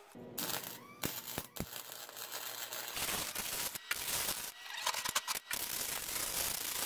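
Electric arc welding on the stacked steel plates of a Damascus billet: a dense, steady crackle from the arc, starting about three seconds in. Before it come a few sharp metallic clicks and knocks.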